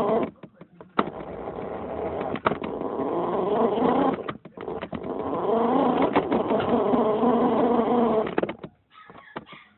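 Electric motor of a radio-controlled toy car whining as it drives, with its pitch rising and falling. It runs in two stretches, stopping briefly about four seconds in, with a few sharp clicks and knocks along the way.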